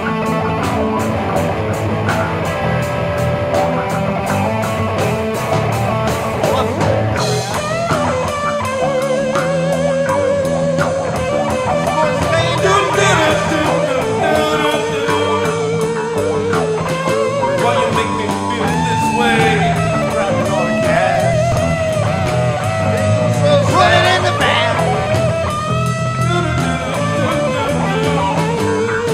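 Rock band recording with electric guitar, bass and drums. About seven seconds in, cymbals come in and a lead line with wavering pitch plays over the band.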